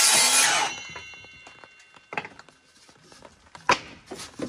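A sliding compound miter saw finishes cutting a wooden board, and the cut stops under a second in. Its blade then whines as it spins down. After that come a couple of sharp wooden knocks as boards are handled.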